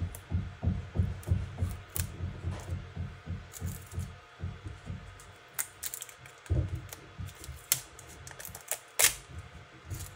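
Handling noise: a run of soft low thumps, about three a second, with a few sharp clicks, the loudest near the end, as packaging and tools are handled on a tabletop.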